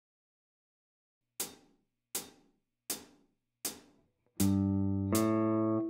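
Four evenly spaced ticks count in, then a semi-hollow electric guitar begins the open-position G major scale ascending from low G. It plays one note per beat, each ringing on under the next for a full, overlapping sound.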